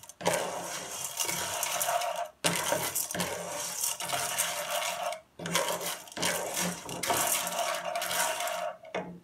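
Unpopped popcorn kernels rattling and scraping against a nonstick frying pan as they are stirred in oil with a wooden spoon, toasting before any pop. The rattle stops briefly about three times.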